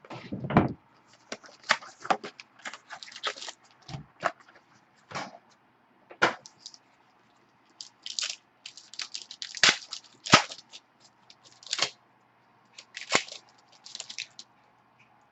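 Wrapping of a Crown Royal football card box and pack being torn open and crinkled, in irregular crackling bursts with a couple of sharp snaps about ten seconds in.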